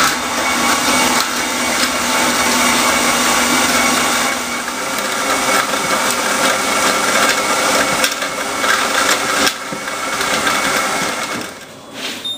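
Cordless drill driving a Monster Mill roller grain mill as it crushes malt: a loud, steady motor whine over the grinding rattle of grain through the rollers. It stops near the end.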